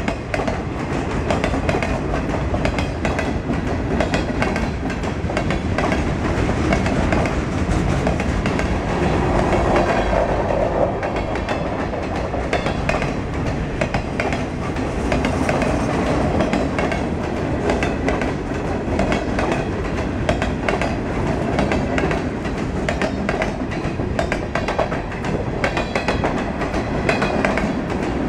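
Freight train boxcars rolling past, steel wheels clicking over rail joints again and again over a steady rumble and rattle of the cars.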